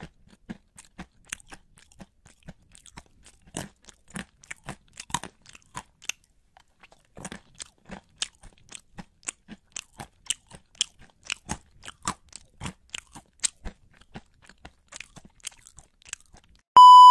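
Close-miked crunchy chewing: a steady run of sharp crunches, two or three a second, as crisp food is bitten and chewed. A loud steady beep tone cuts in near the end.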